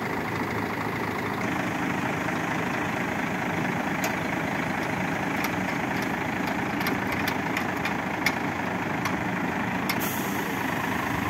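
Heavy diesel truck engine running steadily, powering the hydraulics of its truck-mounted knuckle-boom crane as the boom is folded away, with a series of light sharp clicks from about four seconds in.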